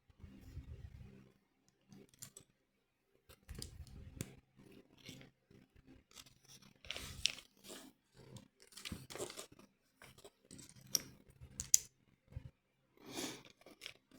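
Plastic LEGO pieces being handled and pressed together: faint, irregular rustling and clicking, with a few sharper clicks.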